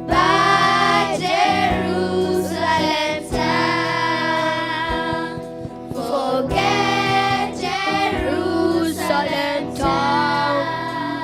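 A song sung by female and children's voices over an instrumental backing, with the sung lines breaking every second or two.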